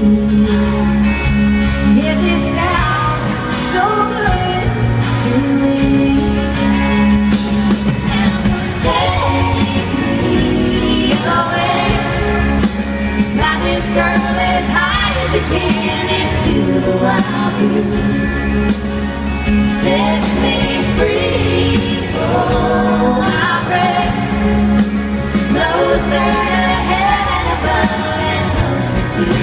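Live country music from a band: a melodic lead over a steady bass line.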